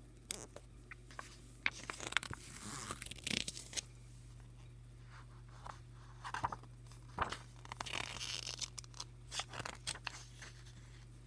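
Paper pages of a graphic novel being turned and handled close to the microphone: crisp rustles with small clicks and taps, the longest rustles a few seconds in and again past the middle. A low steady hum runs underneath.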